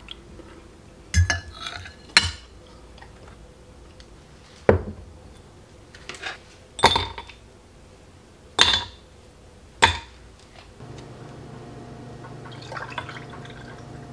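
About six sharp glass clinks, spread over ten seconds, as a glass mug is set down and ice cubes go into it. Near the end comes a softer sound of a drink starting to pour over the ice.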